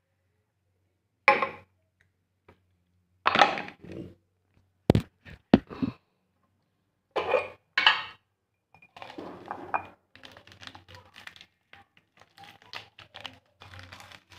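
Kitchen handling noises: a few knocks and clinks of a jar and utensils being picked up and set down, some of them sharp. From about nine seconds in comes a steady run of small crinkling rustles as hands sort through plastic coffee sachets in a glass jar.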